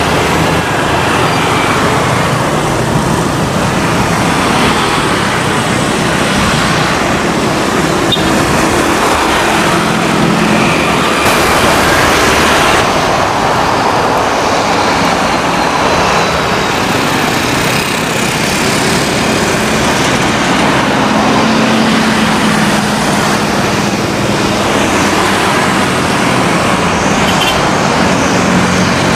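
Twin Pratt & Whitney PT6A turboprop engines of a Beechcraft King Air 350i running steadily at taxi power, a continuous propeller and turbine drone.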